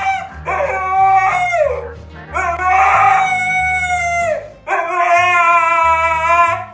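Husky howling: three drawn-out howls, the last two long and held steady before dropping in pitch at the end. Background music with a low repeating bassline plays underneath.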